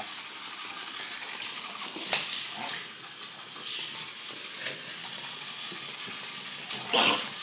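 Scattered light clicks and taps of a dog's claws and a toy tarantula on a wooden floor, over a steady hiss, with a brief louder burst of noise near the end.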